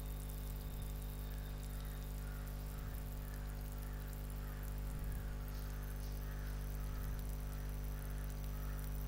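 Steady low electrical hum with a faint even hiss: the recording's background noise, with no other sound standing out.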